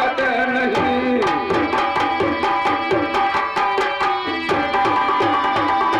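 Folk-theatre musical accompaniment: hand drums play a fast, steady rhythm, with deep strokes that slide down in pitch, over sustained held notes that come in about a second in.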